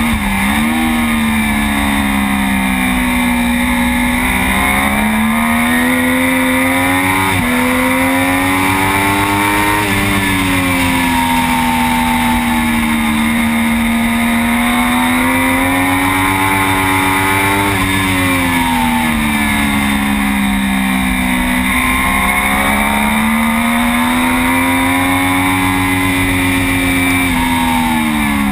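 Triumph Daytona 675 three-cylinder sportbike engine heard from on board at racing speed. The revs climb and fall over and over, dropping sharply at gear changes, with a steady rush of wind.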